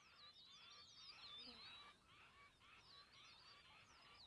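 Faint birdsong: several birds giving quick, repeated chirping calls that slide in pitch.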